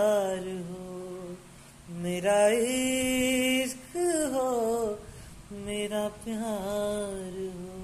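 A man singing without accompaniment: several drawn-out phrases of bending, wavering notes, with one long steady held note about two to four seconds in and short breaks between phrases.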